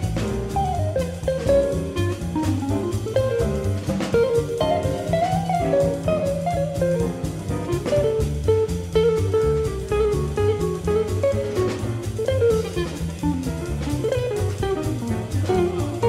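Live bebop jazz combo: an archtop guitar solos in fast single-note lines over upright bass and drum kit.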